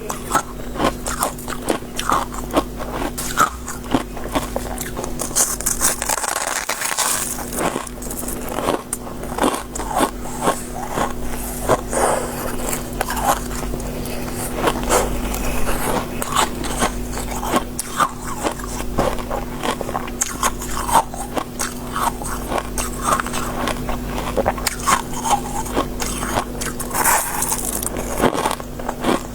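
Soft, crispy shaved ice (freezer frost) being bitten and chewed close to the microphone: a dense run of rapid, crisp crunches.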